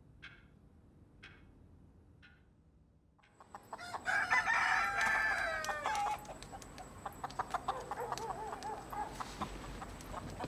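A rooster crows once, loudly, for about two seconds, starting a few seconds in. Hens then keep clucking, with many short clicks among the calls.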